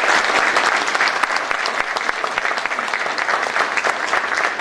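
Audience applauding: dense clapping of many hands, easing slightly toward the end.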